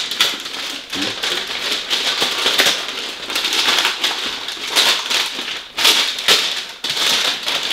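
Shiny red gift bag and its tissue paper rustling and crinkling as a present is pulled out, a run of quick crackles with several louder ones in the second half.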